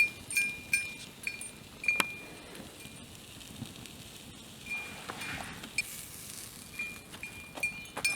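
Light metallic clinks, about a dozen at irregular spacing, each with a brief bell-like ring at the same high pitch. There is a soft rustle about five seconds in.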